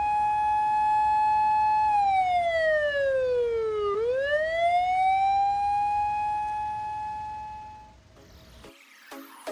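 Japanese police-style electronic siren wailing. A single tone holds high, glides down over about two seconds, then climbs back up and holds before fading out near the end.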